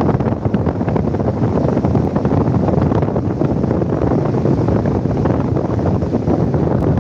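Wind noise on the phone's microphone: a steady, dense low rumble with no break.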